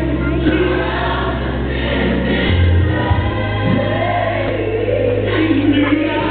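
Gospel music with a choir singing over a steady, sustained bass line.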